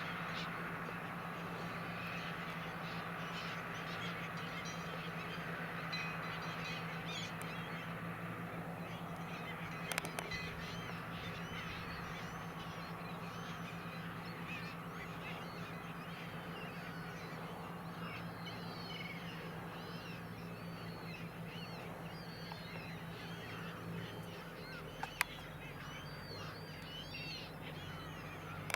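A large flock of gulls calling over and over, many short calls overlapping, above the steady low hum of a Valtra tractor's engine. The calls grow denser in the second half, and a couple of sharp clicks stand out.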